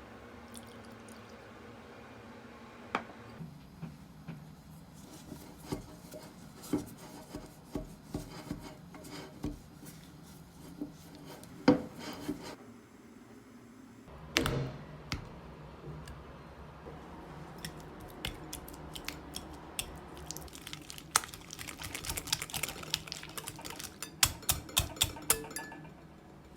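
Kitchen baking prep: utensils clinking, tapping and scraping against a bowl, in scattered taps with a denser run of quick clicks near the end.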